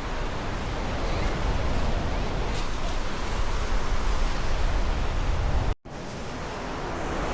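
Steady rushing noise of surf and wind on the microphone, with a heavy low rumble. It cuts out abruptly for a moment about six seconds in, then resumes.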